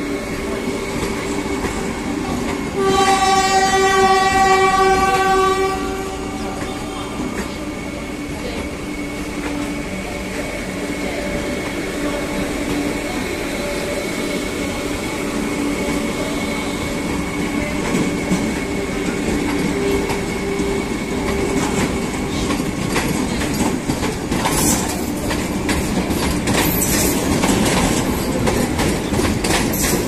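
Vande Bharat electric trainset pulling away under power, passing close by. Its horn sounds once for about three seconds, a few seconds in, over a steady whine and rolling noise. The wheels click over rail joints near the end.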